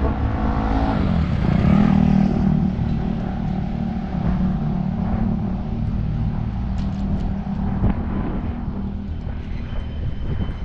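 Drain-cleaning snake machine's motor running under load. Its pitch rises about a second in, holds steady, then drops away near the end.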